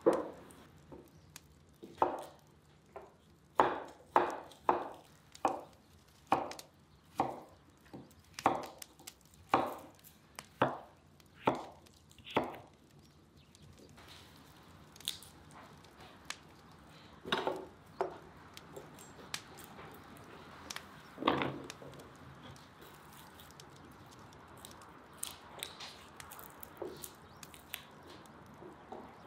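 A knife chopping on a wooden surface: about a dozen sharp, evenly spaced chops over the first twelve seconds. After that come scattered quieter clicks and a couple of knocks as a knife peels garlic cloves.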